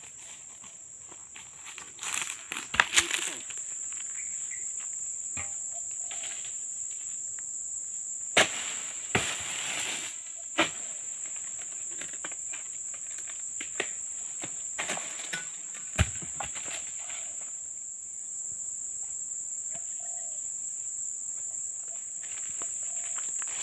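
Steady high-pitched insect drone, with a long-pole harvesting sickle hacking at an oil palm's fronds. There are several sharp chops, the loudest about 3, 8½, 10½ and 16 seconds in, and a burst of rustling around 9 to 10 seconds.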